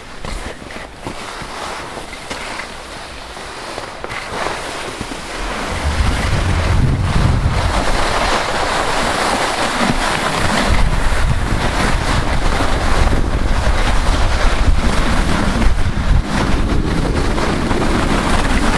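Wind buffeting the microphone over skis sliding on packed snow, a steady noisy rush that gets louder about six seconds in.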